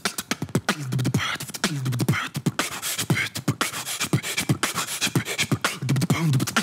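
Beatboxing: a fast, even rhythm of vocal kick-and-snare clicks, with short falling bass hums worked in several times.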